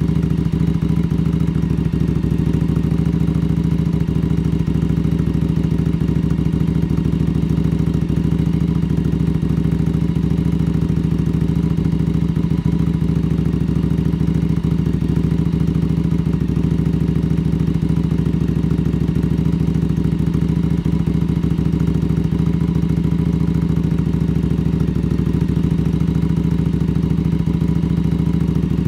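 1981 Yamaha XV750 Special's air-cooled V-twin idling steadily on its first run after a complete engine rebuild.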